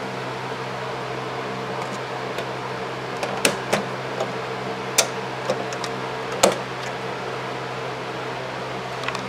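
Steady low electrical hum from an idle washing machine, with a run of sharp ratcheting clicks in the middle as the timer dial of a 1986 Kenmore 60 Series washer is turned by hand.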